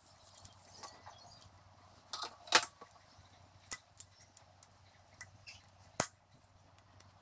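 Sharp metal clicks and taps of needle-nose pliers against the small parts of a Yamaha XS650's ignition advance unit as it is assembled: a few scattered clicks, the loudest about two and a half seconds in and another near six seconds.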